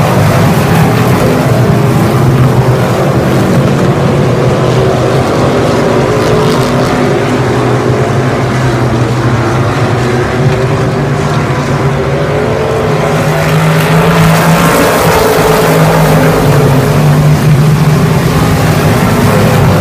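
A pack of hobby stock race cars' engines running hard around a dirt oval: a loud, continuous engine drone whose pitch rises and falls as cars come off the turns and back onto the throttle. It grows louder about fourteen seconds in as the field comes down the near straight.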